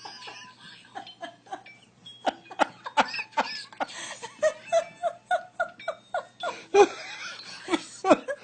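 A person laughing in a run of short bursts, starting about two seconds in.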